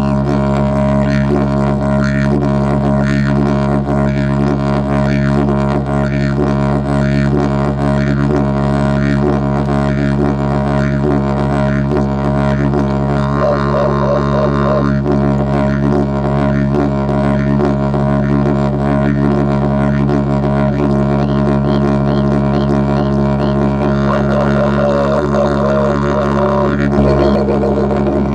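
Didgeridoo played in one unbroken low drone, with rhythmic pulses and shifting overtones over it.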